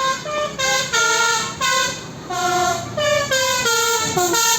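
Bus 'telolet' horn, a multi-tone musical air horn, playing a quick tune of short stepped notes, pausing briefly about two seconds in.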